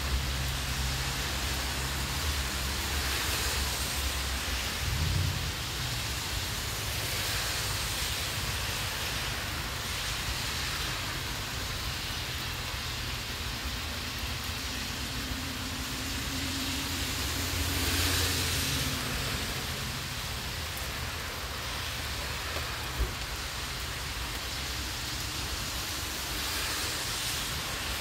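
Steady rain falling on concrete and grass, an even hiss, with a low rumble that swells about two-thirds of the way through.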